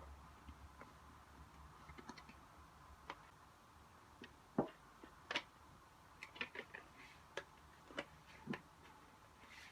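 Faint, irregular plastic clicks and taps from handling a mechanical keyboard, such as pressing keycaps or switches, with two louder clicks near the middle and a quick run of several soon after.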